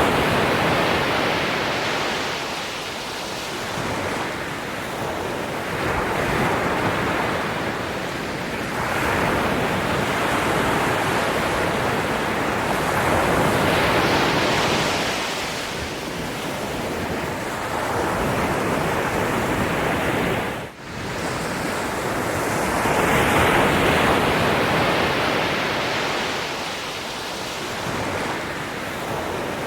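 Ocean waves breaking and washing up on shore, swelling and ebbing every few seconds. The sound cuts out for an instant about two-thirds of the way through.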